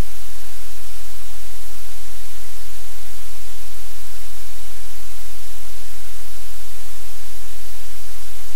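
Loud, steady static-like hiss with a low rumble underneath, unchanging throughout and with no separate sounds in it.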